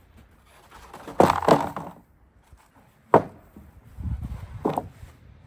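Wooden boards knocking and clattering as they are lifted from a pile: two knocks about a second in, a sharp single knock about three seconds in, and another near the end.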